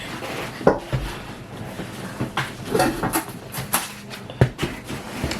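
Scattered clicks, knocks and short rustles of objects being handled close to the microphone.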